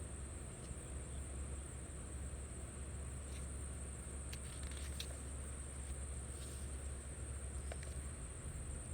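Insects trilling outdoors, a steady, high, unbroken chirr at one pitch, with a few faint clicks about halfway through.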